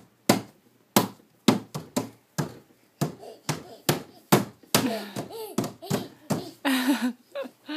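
A toddler slapping a painted wooden bed panel with his open hand, about two sharp slaps a second. In the second half he babbles and squeals between the slaps.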